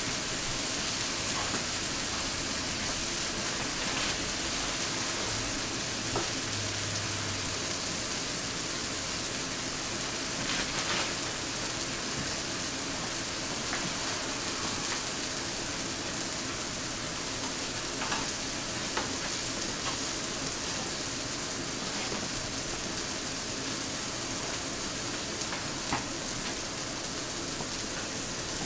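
Sausage patties sizzling steadily in a frying pan, with a few faint pops of spattering fat.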